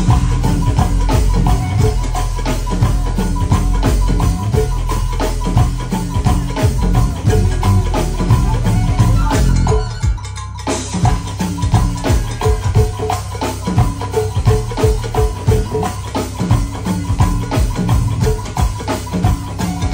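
Go-go band playing live: an instrumental groove of drum kit and percussion over a strong low end. The band thins out briefly about halfway through, then picks back up.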